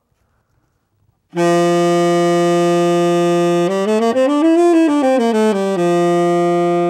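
Tenor saxophone coming in just over a second in with a long held low note, then a quick run of notes up and back down, then the low note held again. It has a full, steady tone, played with a proper embouchure, the lips sealed around the mouthpiece so the air flows through the horn.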